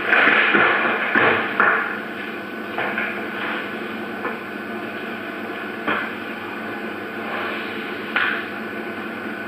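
A few irregular knocks and thuds, the loudest in the first two seconds and then sparser, over a steady background hiss and hum.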